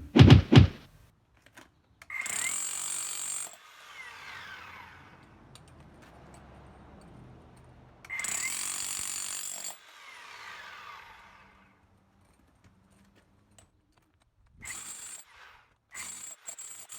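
Milwaukee M18 Fuel 1-3/4" SDS-Max cordless rotary hammer running in two bursts of about a second and a half, each followed by a falling whine as it winds down, then several short bursts near the end.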